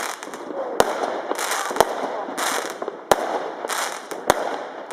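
Fireworks going off: four sharp bangs about a second apart, with noisy crackling bursts in between.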